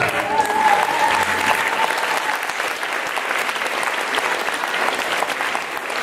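Audience applauding, a dense steady clapping from many hands.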